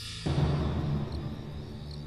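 Soundtrack music at a scene change: a sudden hiss, then a deep drum-like hit about a quarter second in that fades over about a second into a steady held drone.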